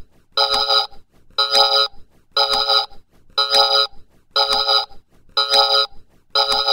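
Electronic ringing tone with a fast trill in each ring, repeating about once a second, each ring about half a second long, like a phone ringtone or alarm.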